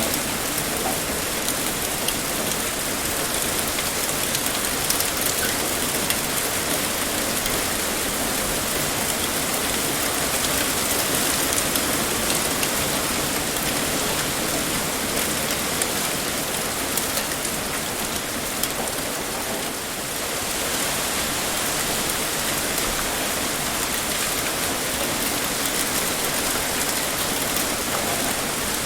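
Heavy rain pouring steadily, a dense even hiss with many fine drop ticks striking a surface.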